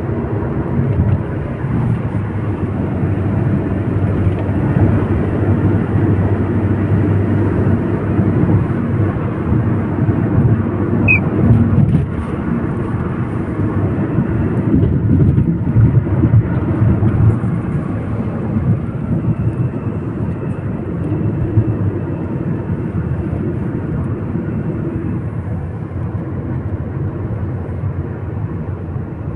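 Vehicle driving along a road: a steady low rumble of tyres and engine.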